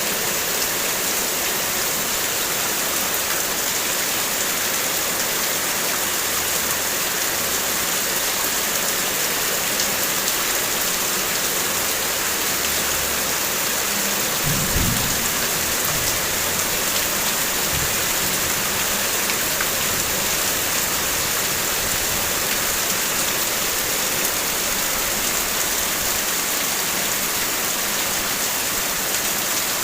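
Heavy rain falling steadily on a car's body, a dense even hiss of drops. About halfway through, a brief low rumble sounds once.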